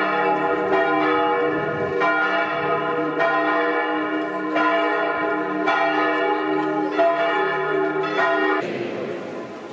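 Church bells ringing loudly, struck again about once a second so the ringing is renewed in an even rhythm, then cutting off abruptly near the end.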